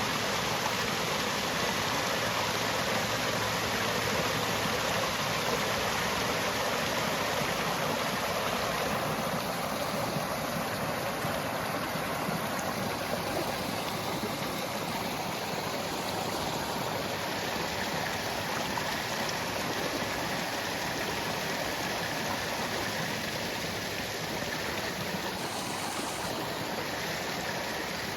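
Steady rush of falling and running water from a waterfall, easing a little after about nine seconds.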